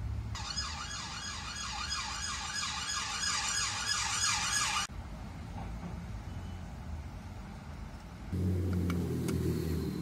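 A rapidly repeating warbling tone, about three rising sweeps a second, for about four and a half seconds, cut off abruptly. Near the end a low steady rumble, like a vehicle engine, comes in.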